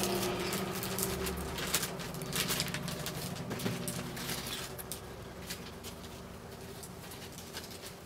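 Light metallic clicks and scrapes of an Allen key working the small cap screws over the pin chambers of a euro lock cylinder, nipping them up. The clicks come thick for the first four or five seconds, then thin out.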